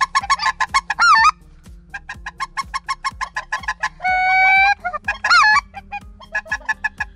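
Goose calls: fast runs of short, high yelping notes, about seven a second, broken by a few longer drawn-out notes, one held steady near the middle.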